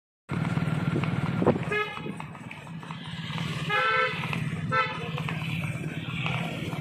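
Vehicle horns tooting three short times, at about two, four and five seconds in, over the steady drone of running motorcycle engines.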